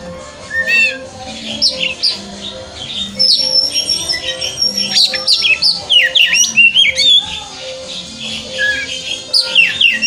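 Male oriental magpie-robin singing a loud, varied song of rich whistles and quick down-slurred notes, including one long high held whistle. The song eases off briefly near the end, then comes back in a fresh burst.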